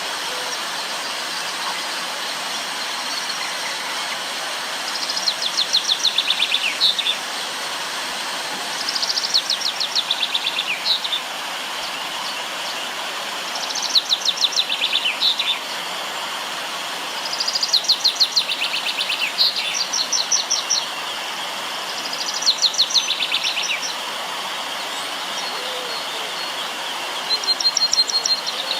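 A songbird repeating a short phrase of fast, high notes about every four seconds, over the steady rush of river water.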